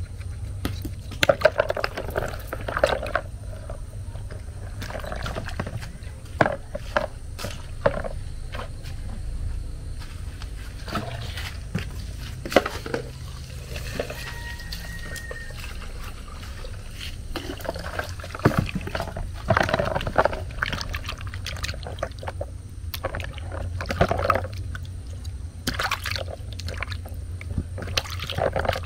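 Hands scrubbing live snails with a cloth in a plastic bowl of water to wash off their slime: irregular sloshing and splashing with sharp knocks of the shells. Water is poured at an outdoor tap midway.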